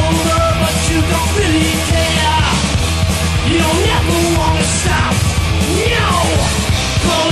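Heavy metal rock music from a full band, with a lead line that slides up and down in pitch.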